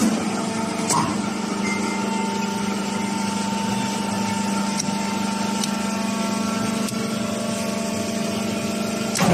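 Electric motor of a concrete mixer pump running at a steady speed: an even hum, with a small click about a second in.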